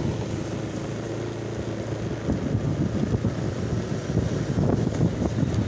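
Motor scooter's engine running as it rides along, with wind buffeting the microphone. The buffeting grows louder from about two seconds in.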